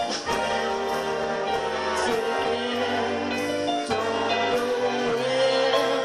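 Live big band playing 1940s-style dance music, with a beat about once a second and a long held note near the end.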